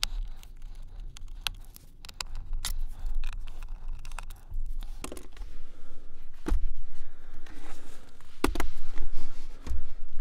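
Small screwdriver working the captured screws on a Framework Laptop 13's aluminium bottom cover, with scattered light clicks and scrapes. After that come a few louder dull knocks, about two seconds apart, as the laptop is turned over and set down on the desk mat.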